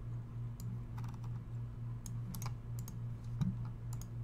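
Irregular clicks of a computer keyboard and mouse, a dozen or so sharp taps, over a steady low hum.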